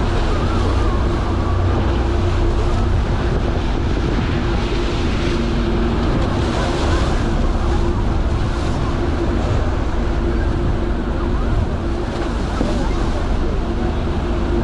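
Fast tidal current churning and rushing in whitewater eddies beside a large sightseeing ship, over the ship's steady engine hum, with wind buffeting the microphone.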